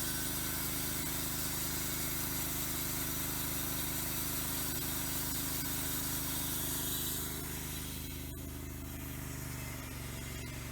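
An engine idling steadily. A little past halfway the hiss above it fades and the level drops slightly.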